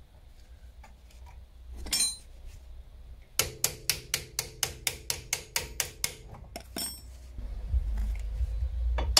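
A hammer striking steel on a car's front suspension in quick, even blows, about four a second, with a metallic ring, after a single blow about two seconds in. The blows are aimed at freeing a seized joint that will not come apart.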